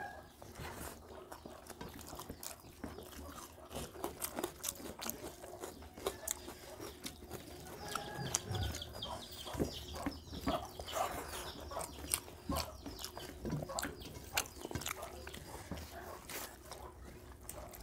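Quiet hand-eating sounds: fingers mixing wet rice and curry on steel plates, and chewing and lip smacks. The result is an irregular run of small clicks, squelches and taps.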